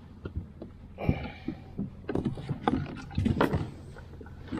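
Irregular knocks, bumps and scrapes against a kayak hull, in a cluster about a second in and again from about two to three and a half seconds in.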